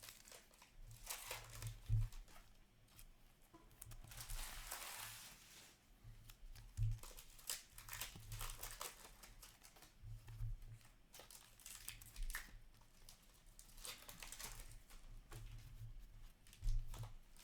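Trading-card pack wrappers crinkling and tearing, with cards rustling and clicking as they are handled and sorted. The longest tearing rustle comes about four to five seconds in.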